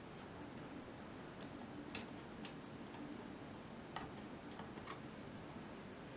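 A handful of faint, irregular small clicks as the steel lever plates of a dismantled five-lever mortice lock are handled.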